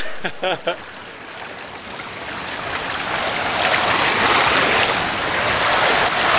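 Water rushing down a water slide, growing steadily louder as the rider slides down, with a few short yelps in the first second.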